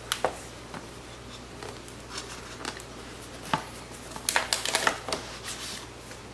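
Cardboard box packaging being handled: a few light knocks and taps, then, about four seconds in, a quick run of scraping and rustling as the tight-fitting sleeve is worked off the inner box.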